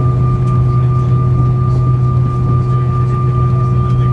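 Steady cabin noise of an Airbus A319 taxiing with one engine running: a loud, even low drone with a thin, steady high whine over it.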